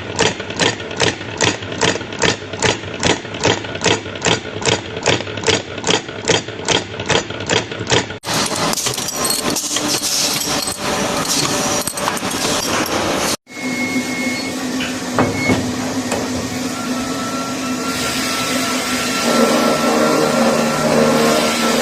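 Workshop machinery: for about eight seconds a rhythmic metallic striking, about three strikes a second. It then cuts to a dense, steady noisy machine run, and after a second cut to a machine running with a steady hum.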